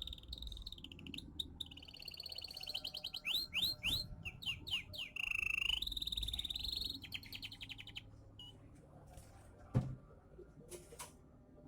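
Pet songbird singing, fast trills and sweeping whistles for about eight seconds, then only a few scattered notes, with a single knock near the end. The bird is newly moulted, which the uploader says leaves it singing less often and less freely.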